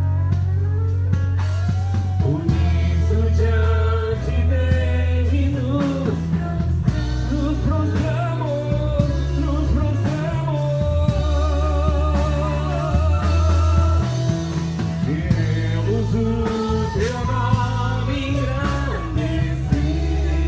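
Portuguese Christian worship song: a voice singing a melody over a bass line, guitar and drums.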